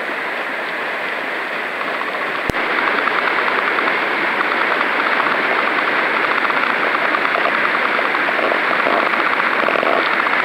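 Steady rush of whitewater rapids on a river running high. A brief click comes about two and a half seconds in, after which the rush is louder.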